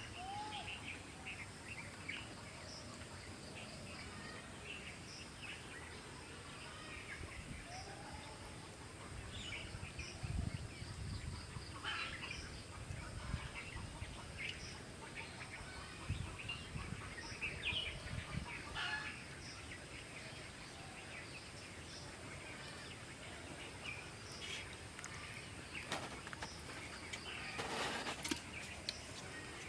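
Quiet rural outdoor ambience with scattered bird chirps and calls throughout, and a few dull low thumps near the middle.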